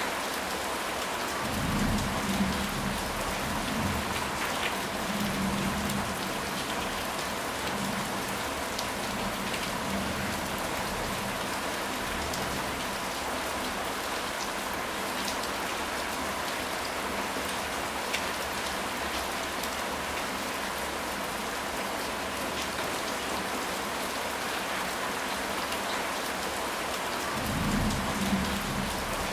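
Steady heavy rain falling, an even hiss. Low rolls of thunder rumble about two seconds in and again near the end.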